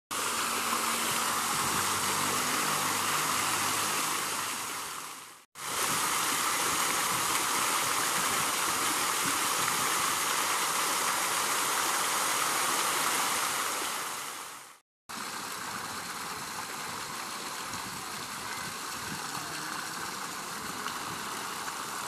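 Many fountain jets spraying up and splashing back down into a pool: a steady rushing of falling water. It comes in three takes, broken by brief drops to silence about five and a half and fifteen seconds in, and the last take is quieter.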